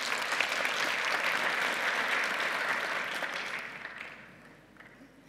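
Audience applauding, dense clapping that holds steady for about three seconds and then dies away about four seconds in.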